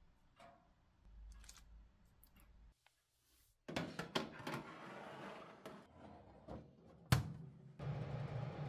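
Metal baking tray slid onto the oven rack, scraping and clattering, about four seconds in, followed by a single sharp clack. Near the end the convection oven's fan starts with a steady low hum.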